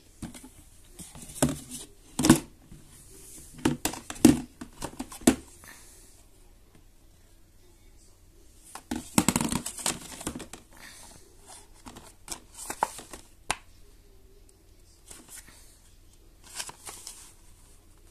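Hands handling plastic items in a plastic baby bath tub: hard plastic clicks and knocks, then the crinkling of a packaged bath net's wrapper, in short bursts with pauses.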